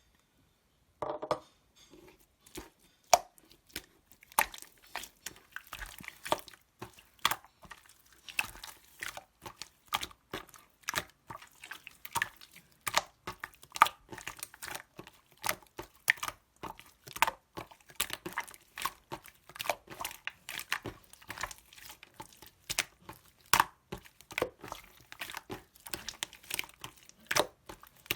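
Slime being squished and kneaded by hand, giving a dense, irregular run of small wet clicks and pops.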